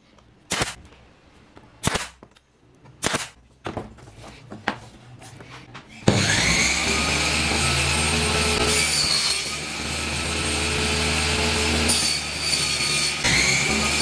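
Several sharp snaps from a pneumatic brad nailer, then about six seconds in a table saw starts up abruptly, its pitch rising briefly, and runs loud and steady while ripping a thin plywood strip, with a short change in its sound near the end.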